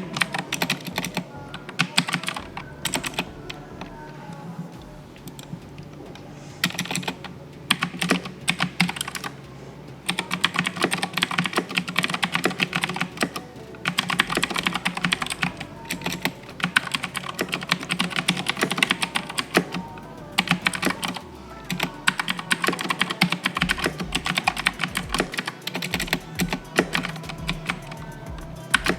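Fast typing on an Aula F2066-II mechanical keyboard with blue switches: very loud clicky keystrokes in quick runs broken by a few brief pauses, with background music underneath.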